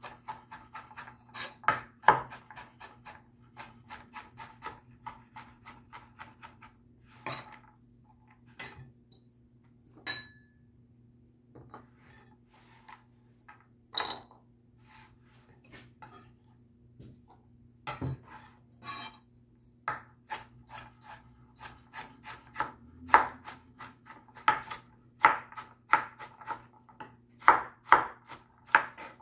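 Chef's knife chopping carrots into rounds on a plastic cutting board, quick even strokes about four a second. After about seven seconds the chopping stops for a long stretch with only a few scattered knocks, then starts again quick and steady about twenty seconds in.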